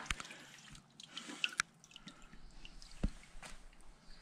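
Water dripping and trickling into a sharpening water tank, with a few scattered sharp clicks and one dull knock about three seconds in.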